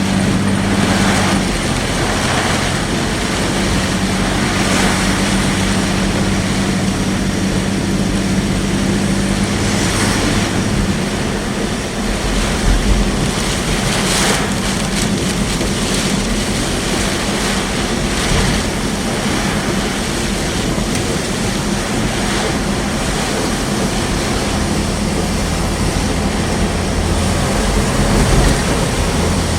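Loud, steady roar of wind-driven rain and wind buffeting a moving vehicle, with a low hum from the car underneath and a few brief louder gusts.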